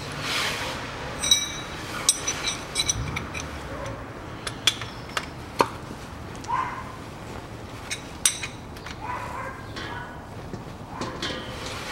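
Scattered sharp metallic clinks and ticks of a hand tool working a hex plug on a Land Rover Discovery 3's rear differential, a few of them ringing briefly.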